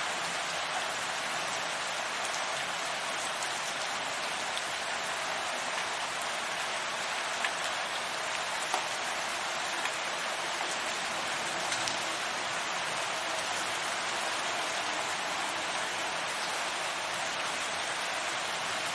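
Steady rain falling, a dense even hiss with occasional single drops ticking out of it.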